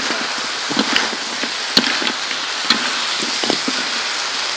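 Chicken pieces sizzling in a steel wok while being stir-fried, with a metal spatula scraping and clinking against the pan about once a second.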